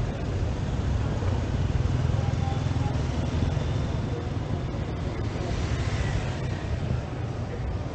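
Busy street ambience: a steady rumble of road traffic from passing vehicles.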